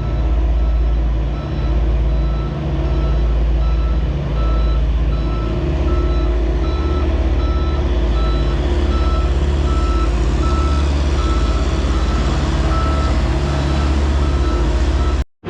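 Reversing alarm of a heavy construction vehicle beeping steadily, about one and a half beeps a second, over its loud engine rumble. The sound cuts off abruptly near the end.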